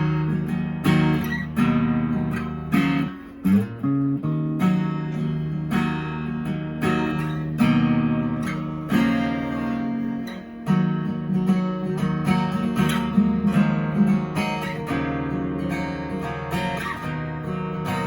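Enya EA-X1 Pro acoustic guitar played raw, a mix of strummed chords and picked single notes.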